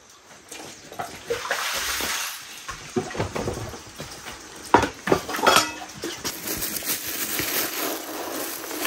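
A pot and bowl knocking and clinking as they are handled, then uncooked rice scooped from a plastic-bag-lined bucket with a bowl: a steady rustling hiss of grains against the bowl and bag over the last few seconds.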